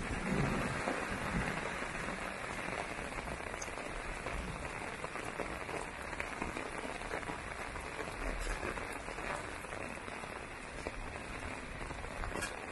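Heavy rain falling steadily on surfaces, with a few sharper drop ticks here and there.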